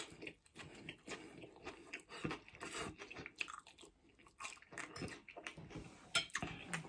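A man chewing a mouthful of Chinese takeaway noodles, with many small irregular wet mouth clicks and smacks.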